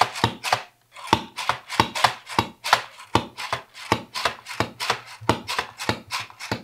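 Button mushrooms being sliced with a hand slicer: a quick run of sharp clicking cuts, several a second, with a short pause about a second in.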